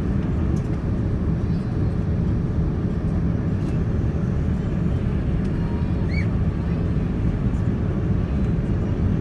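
Steady low rumble of an airliner cabin in flight, the engines and the airflow past the fuselage of a Boeing 787-9 heard from inside.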